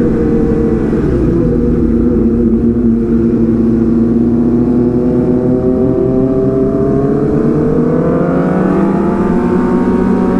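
Sport motorcycle engine running hard under way, its pitch sagging slightly and then climbing steadily over the last few seconds as it accelerates.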